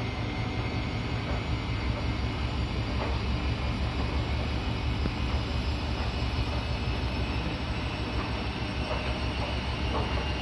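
Siemens iQ300 washing machine running through its spin, a steady low rumble that the owner says sounds very good in the spin overall.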